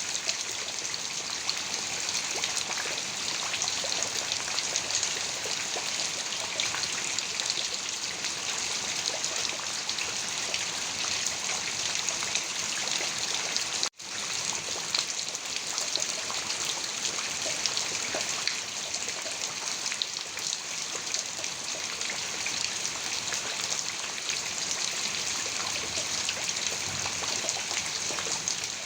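Heavy rain falling steadily, a dense hiss of drops, broken by a momentary gap of silence about halfway through.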